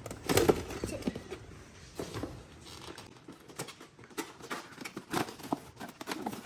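Irregular light knocks, taps and rustles of a car stereo's box and packaging being opened and unpacked by hand.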